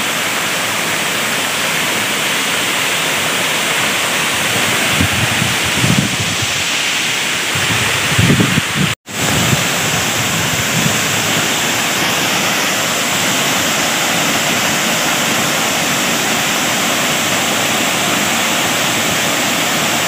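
Waterfall crashing into a pool, a steady loud rush of falling water, cut off for a moment about nine seconds in.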